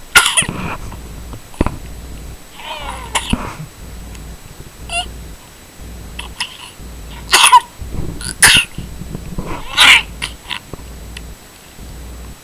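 A cat coughing: a series of short, harsh hacking coughs in spells, the strongest near the start and around eight to ten seconds in.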